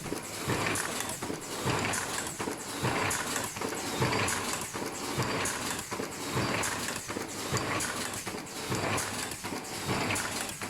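Ultrasonic welding machine with automatic feeder running through repeated cycles, a mechanical clatter with a louder stroke about once a second.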